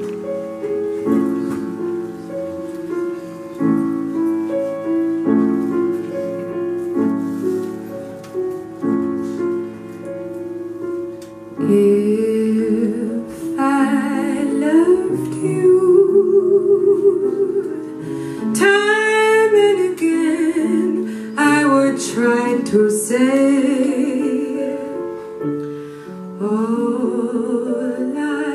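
Live jazz ballad on a grand piano, playing sustained chords about every second and a half. About twelve seconds in, a louder melody line with vibrato joins over the accompaniment.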